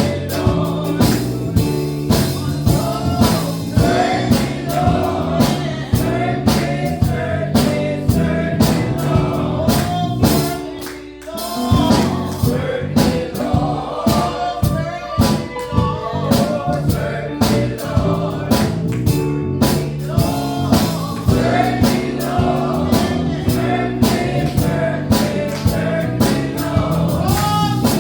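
Gospel choir singing over a band with a steady drum beat; the music thins out briefly about eleven seconds in.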